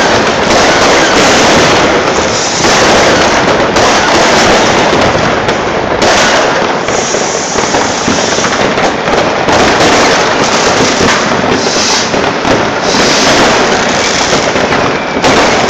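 Many fireworks going off at once: a continuous, dense barrage of bangs and crackles with no break.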